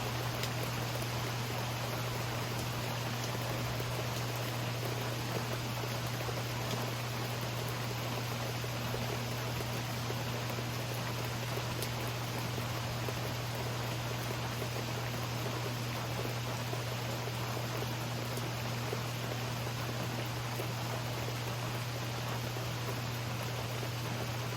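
Steady rain: an even hiss with scattered faint drop ticks, over a constant low hum.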